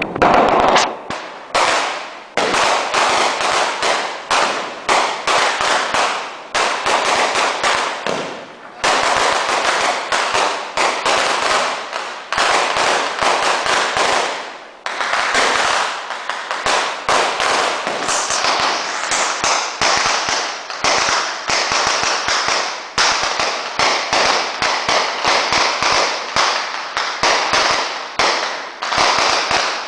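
A 2.5-metre string of firecrackers (a metralleta) going off in rapid, dense strings of sharp bangs, with a couple of brief lulls.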